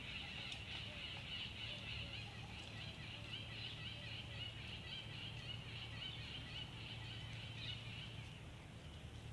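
Many small birds chirping together in a dense, continuous chatter that thins out near the end, over a steady low hum.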